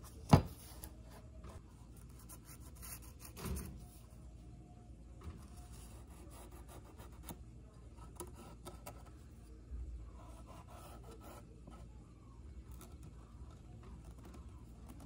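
Faint rubbing and scraping of hand work on a workpiece, with a sharp knock about half a second in and a duller thud about three and a half seconds in.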